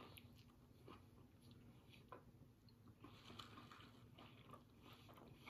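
Faint close-up chewing of a mouthful of Italian sausage sandwich, with soft wet mouth clicks scattered through.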